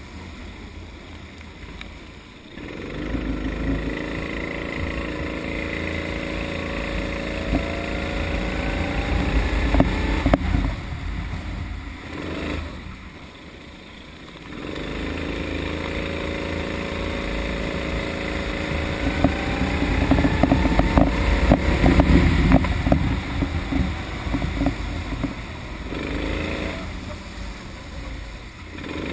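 Kart engine under way, its note climbing in pitch as it accelerates about 3 s in and again about 15 s in, and dropping back in between and near the end as the throttle is lifted for corners.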